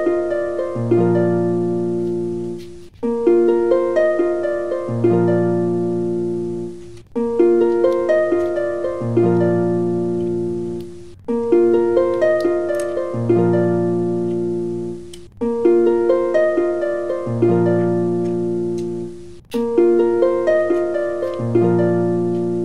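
Background music: a short phrase of plucked, harp-like notes that repeats as a loop about every four seconds, each pass cutting off briefly before starting again.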